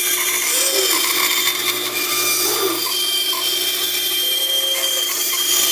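Bandsaw running and cutting through a wooden block: a steady hiss over a low hum.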